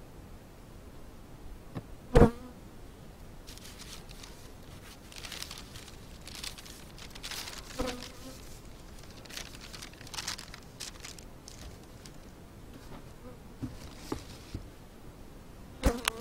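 Honeybees buzzing around an open hive while it is closed up. A sharp wooden knock comes about two seconds in as a hive cover board is handled, newspaper rustles through the middle as it is spread over the boards, and a loud clatter near the end marks the sheet-metal roof being set on.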